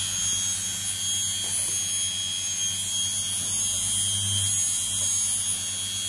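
Washing machine's brushed universal motor running at a constant speed, held there by a TDA1085C tachogenerator-feedback speed controller: an even hum with a steady high-pitched whine.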